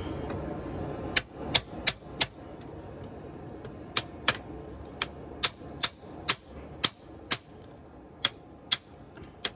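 Hand hammer striking a steel drift driven into the hot eye of a forge-welded wrapped-eye axe: sharp hammer-on-steel blows, four quick ones about a second in, then a short pause and steady strikes about two a second.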